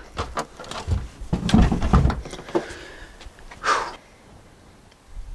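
Clunks and knocks of a heavy H7 car battery being handled and set into place, with several deep thuds in the first couple of seconds and a brief swish near the end.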